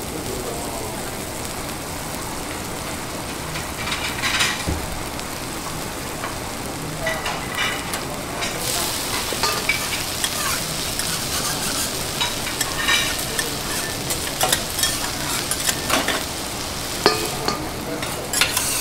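Food sizzling steadily on a teppanyaki iron griddle, with metal spatulas scraping and clicking against the hot plate, sparse at first and frequent in the second half.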